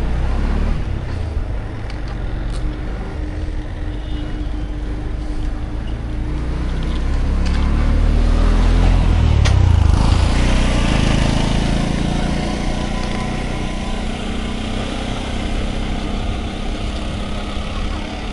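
Road traffic going by, with a motor vehicle's engine passing close and loudest about nine seconds in, over a steady low rumble.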